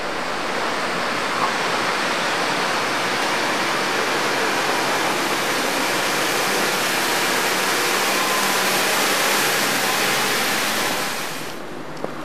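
A vehicle running close by in a narrow stone street: a steady, loud rushing hiss with a low engine hum beneath. It cuts off sharply near the end.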